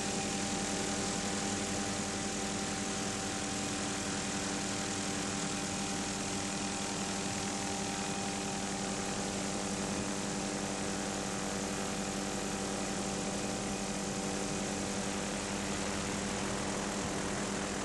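Steady engine drone of the aircraft filming from the air: an even hum of several held tones under a hiss, unchanging throughout.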